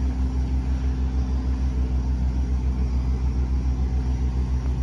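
A large engine idling steadily: a deep rumble with a fast, even throb and a faint steady hum above it.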